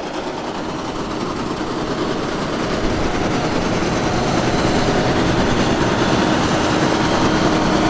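Case IH Axial-Flow combine harvester running at work, with a fast, steady banging rattle from the end of the cutter bar: a broken knife joint, not a healthy sound at all. It grows louder over the first few seconds.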